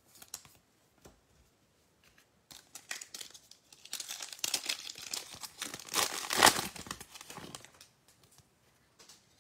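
Foil wrapper of a Panini Mosaic football card pack being torn open and crinkled by hand. The crackling starts about two and a half seconds in, builds to its loudest tear a little past six seconds, and dies away near the end.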